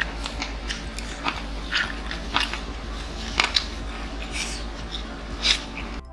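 Close-up mouth sounds of eating: biting and chewing skewered street food, heard as scattered wet clicks and smacks over a steady low hum.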